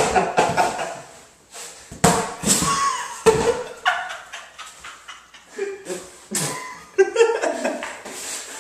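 A young man laughing hard in repeated loud bursts of voice.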